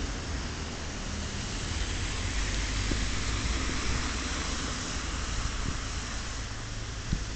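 Steady hiss of a wet road and rain heard from a bicycle riding in city traffic, over a deep rumble, with a short knock about seven seconds in.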